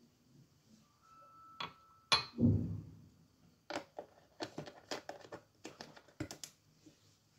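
A short steady beep of about a second, a couple of sharp knocks and a dull thud, then a run of about a dozen light, irregular clicks and taps.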